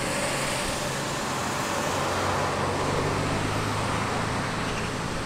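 An engine running steadily, a low even hum over a noisy rush.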